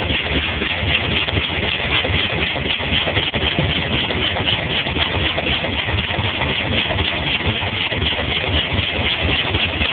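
1965 Cadillac's 429 V8 running at idle with a steady, rapid knocking, which the owner takes for a rod knock.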